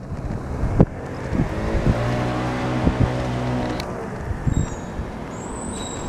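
Street traffic: a road vehicle's engine passes close by, swelling and fading over a couple of seconds. Scattered knocks and the general din of the street go on around it.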